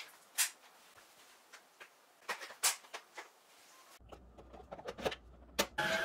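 Hard plastic clicks and knocks as the extension tube of a Miro MBV10 cordless stick vacuum is pushed onto its roller floor head. Near the end the vacuum's motor starts running with a steady whine.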